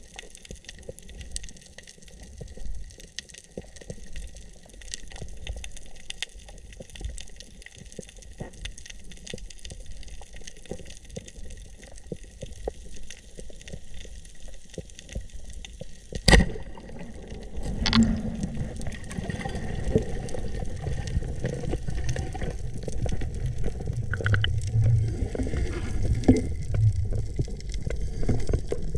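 Water gurgling and sloshing around the microphone, with many small scattered clicks. A single sharp knock comes about sixteen seconds in, after which a low churning water noise grows louder.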